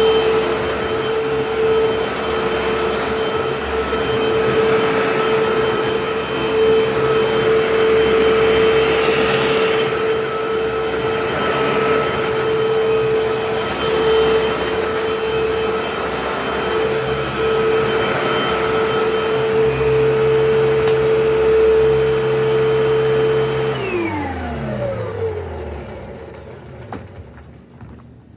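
Vacuum cleaner running steadily on a rug, a constant motor whine over the rush of air. Near the end it is switched off and the motor winds down, its whine falling in pitch for a couple of seconds.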